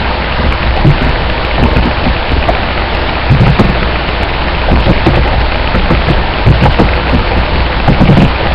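Computer keyboard keys being typed in an irregular patter of clicks, under heavy, steady microphone hiss.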